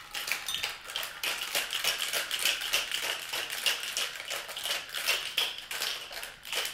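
Ice cubes rattling inside a metal cocktail shaker as it is shaken hard and fast, a rapid, even clatter of ice against the metal walls.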